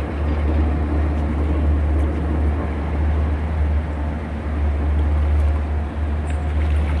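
Steady low rumble of a small shanty boat under way, its motor running with no change in pace.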